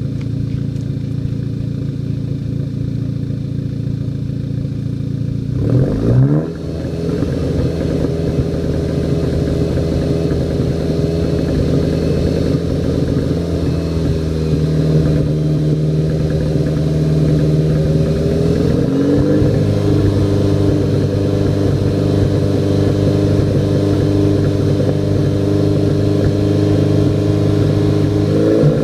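Turbocharged four-cylinder engine of a VW Mk6 GTI with an APR K04 turbo upgrade, held at part throttle while the car is stationary. Its pitch rises quickly about a third of the way in and steps up again about two-thirds through. The running is broken by misfires, which show under part throttle.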